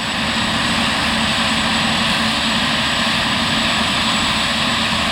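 Claas Lexion 770 TerraTrac combine harvester running while harvesting, a loud, steady, even drone with a low hum underneath.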